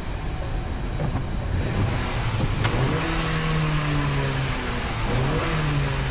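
A 2020 Acura RDX's 2.0-litre turbocharged four-cylinder revved in park: it idles, then climbs quickly to about 4,000 rpm about three seconds in, holds, drops back and rises again near the end. It picks up without lag now that its failed direct-injection high-pressure fuel pump has been replaced.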